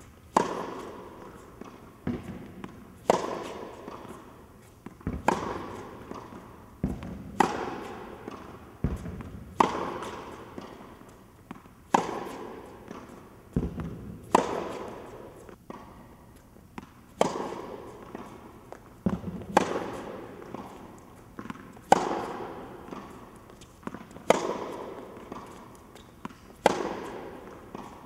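Tennis ball struck by a racket over and over in a groundstroke rally, each hit ringing on in an indoor tennis hall. A loud crack comes about every two and a half seconds, with softer thuds between the hits.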